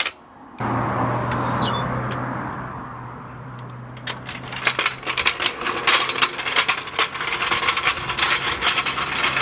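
Small metal parts and tools clinking and rattling in a quick, irregular run of sharp clicks from about four seconds in, over a steady low hum.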